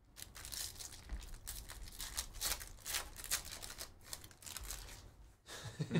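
Hands handling a stack of trading cards and their torn foil pack wrapper: a quick run of scratchy rustles and crinkles as cards slide against one another and the foil is handled.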